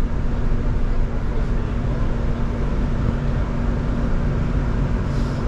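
Cabin noise of an Irizar ie tram battery-electric bus on the move: a steady low road rumble with a constant hum.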